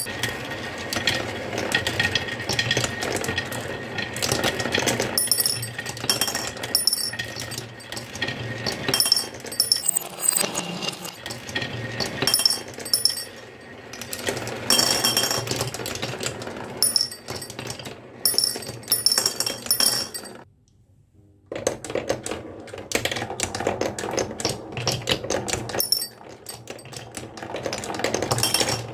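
Balls rolling and clattering down a HABA marble run: a dense, continuous run of clicks and knocks, which stops for about a second about two thirds of the way through and then starts again.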